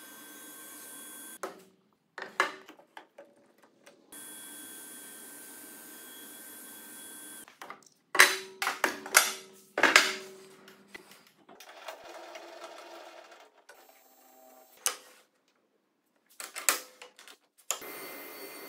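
Sharp wooden knocks and clacks of workpieces and bar clamps being handled and set down on a sliding table saw, in several quick clusters. Between them runs a steady machine hum, broken by short silent gaps.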